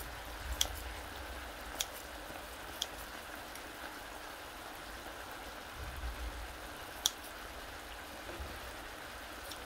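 Marinated pork ribs sizzling and bubbling in their sauce in a pan, a steady hiss. Metal tongs click sharply against the meat or pan four times.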